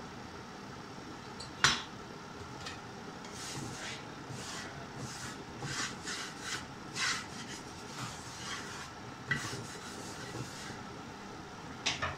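Slotted spatula scraping and stirring in a non-stick frying pan in short strokes, over the steady hum of a kitchen extractor fan. A sharp knock comes about a second and a half in, and a couple of clicks near the end.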